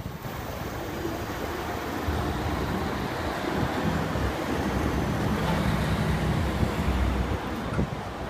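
Street traffic: a vehicle passing with a low engine rumble and tyre noise, growing louder a couple of seconds in and easing off near the end.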